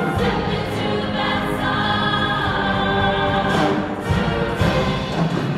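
Women's show choir singing in harmony, a full sustained choral sound, heard through the hall from the audience.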